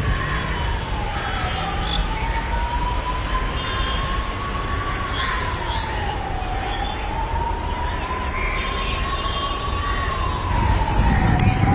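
A siren wailing slowly: one tone rises over about three seconds and drops back over about a second and a half, repeating every five seconds or so, over a steady low rumble.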